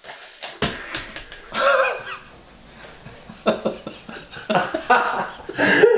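A thrown game controller strikes the camera operator with a sharp thud about half a second in, followed by coughing, gasps and stifled laughter among scattered clicks and rustles.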